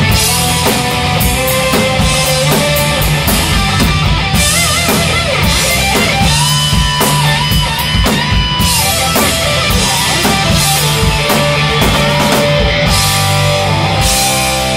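Live rock band playing loud, with a lead electric guitar on a Gibson Les Paul taking an instrumental lead: held notes, bends and wavering vibrato over drums and a steady low end.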